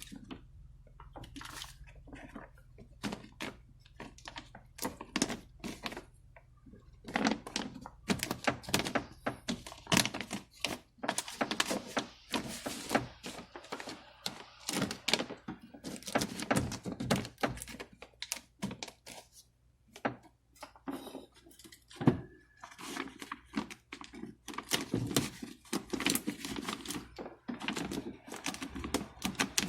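Many irregular clicks, taps and knocks of hands and tools working on parts inside a car door, with one sharper knock about two-thirds of the way through.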